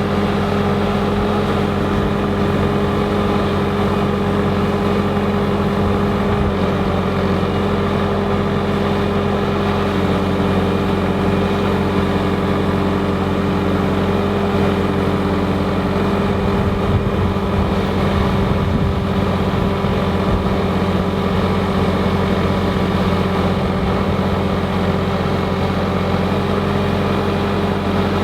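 Skid steer engine running at a steady speed, a constant hum with no hammer blows from the post driver.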